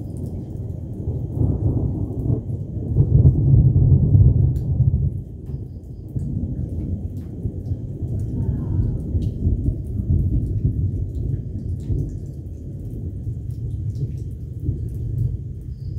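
Thunder rumbling low and long in a storm, swelling loudest a few seconds in and then rolling on at a lower level.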